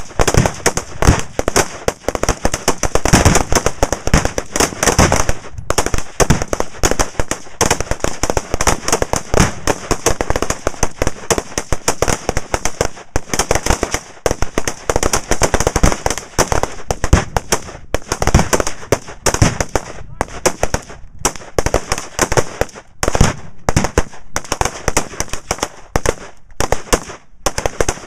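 Rapid, overlapping rifle fire from a line of shooters, a near-continuous crackle of shots with booms mixed in from explosive reactive targets detonating downrange.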